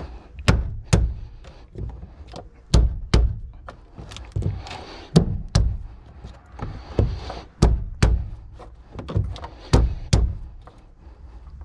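A tool banging on the fuel pump lock ring to drive it around and seat it on the tank: sharp knocks in pairs, about five pairs two seconds apart.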